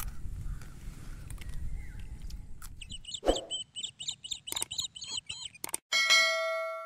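Subscribe-button animation sound effect: a quick run of clicks and short chirps, then a bell ding about six seconds in that rings out and fades.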